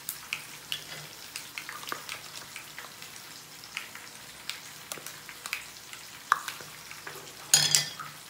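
Sliced brinjal frying in hot oil in a pan, the oil crackling with many small irregular pops. A louder brief clatter comes near the end.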